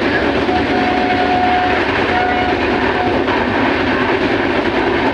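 High-speed express train running past, a steady loud rush of wheels on rail. A faint horn tone is held for about a second early on and sounds twice more briefly.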